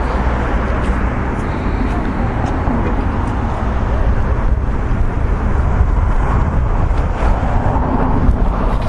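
Steady outdoor road traffic noise with a constant low rumble, and faint voices mixed in.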